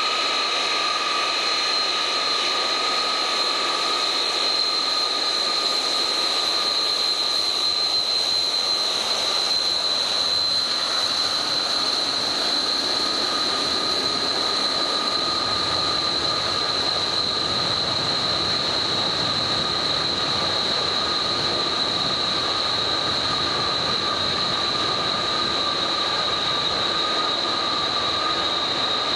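The Pratt & Whitney J57 turbojets of a KC-135A Stratotanker running on a maintenance ground run after a phase inspection: a loud, steady jet whine with a shrill high tone on top.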